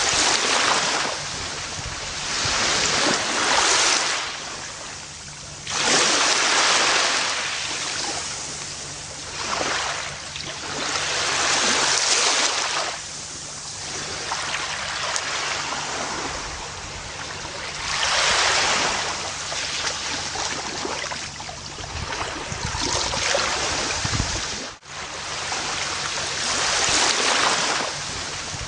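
Gentle ocean waves washing onto a beach, the surf swelling and falling back every few seconds.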